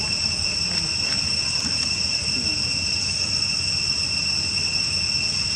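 Steady, high-pitched trilling of insects, unbroken throughout, over a low background hum.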